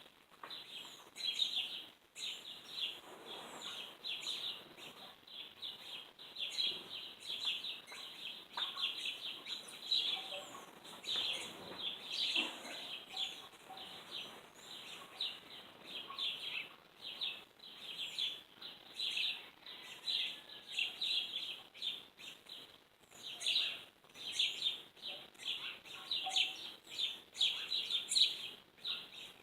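A flock of small birds chirping continuously, many short high notes overlapping one another.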